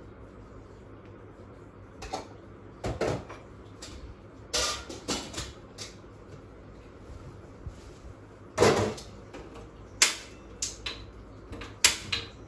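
Kitchen handling noises: bowls, containers and lids knocked and set down, a scattered run of short knocks and clinks starting about two seconds in.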